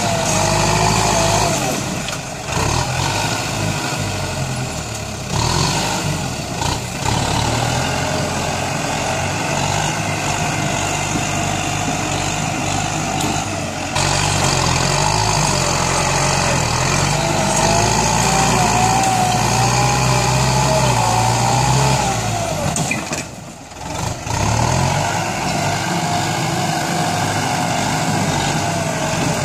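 Kubota tractor's diesel engine running under load as it pushes soil with its front blade and drags a disc plough, the engine note shifting up and down. The sound drops briefly about three-quarters of the way through.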